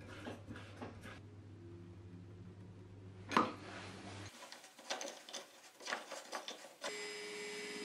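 Clicks and knocks of hands handling wood and metal parts, a threaded rod and nuts, on a home-made wooden lathe, with one sharp knock about midway. Near the end an electric drill, which drives the lathe, starts running steadily.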